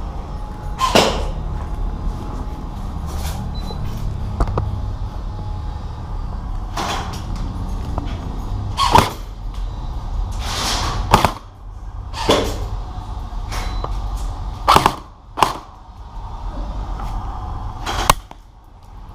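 Airsoft guns firing single shots at irregular intervals, about a dozen sharp cracks over a low steady rumble.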